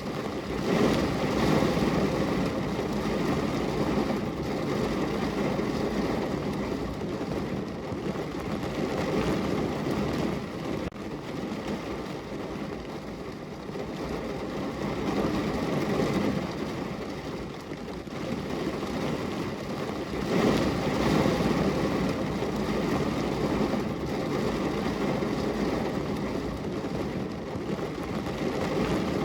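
Heavy rain drumming on a car's roof and body, heard from inside the car: a dense, steady patter that swells and eases in waves.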